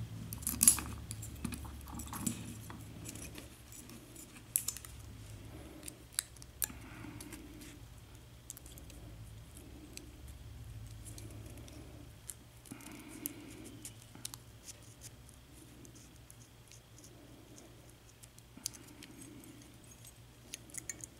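Light metallic clicks and small scrapes from a padlock plug and a shim being worked in by hand, so the plug can slide out of the cylinder while the top pins stay up. The clicks are scattered and sharp, over a low steady hum.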